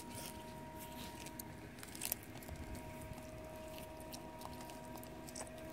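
Galápagos giant tortoises biting and chewing a piece of crisp green food: irregular wet crunches, the loudest about two seconds in.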